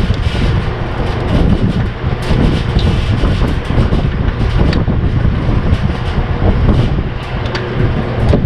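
Steady, loud mechanical rumble with a low hum, and a few faint clicks over it.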